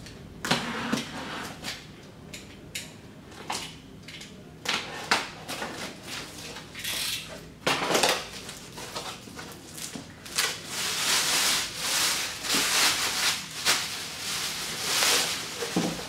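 A cardboard box being opened and handled: scattered knocks, scrapes and rustles of cardboard and packing, busier in the second half.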